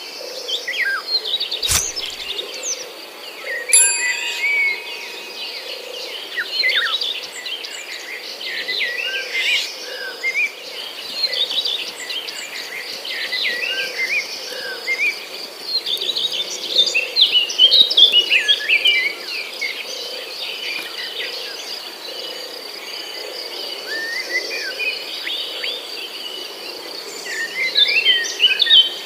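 Many birds chirping and calling in quick, overlapping twitters over a steady high insect drone, with a single sharp click about two seconds in.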